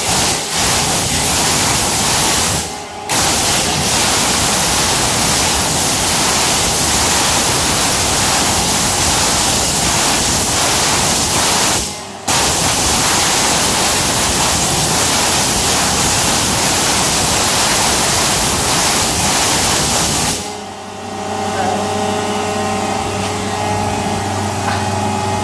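A water jet cutting machine's high-pressure jet hissing loudly and steadily, broken off briefly twice. About 20 seconds in the hiss stops, leaving a steady mechanical hum with several steady tones.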